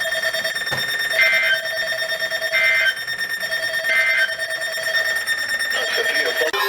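Three short, chirping data bursts of the Emergency Alert System (SAME) end-of-message code on weather radio, about a second and a half apart. They play over a steady electronic background tone and mark the end of the severe thunderstorm warning broadcast.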